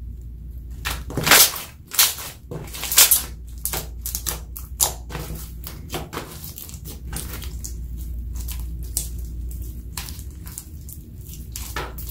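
Clear slime tinted black with eyeshadow and glitter being stretched, folded and pressed by hand, giving a run of wet squelches and sharp air-bubble pops and clicks, loudest and densest in the first few seconds, then sparser.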